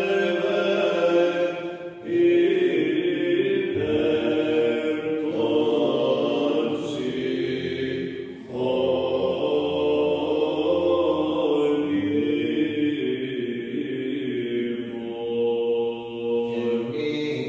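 Male voice singing Byzantine chant in the plagal fourth mode, in long melismatic phrases with brief breaks between them.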